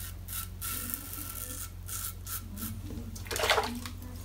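Double-edge open-comb safety razor scraping through stubble in short, repeated strokes on a cross-grain pass, then a brief, louder splash of water about three and a half seconds in.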